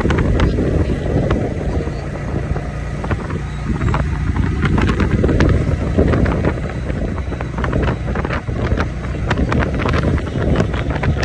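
Ride in a moving auto-rickshaw: steady low rumble of the vehicle on the road, with wind buffeting the microphone through the open side and frequent light clicks and rattles.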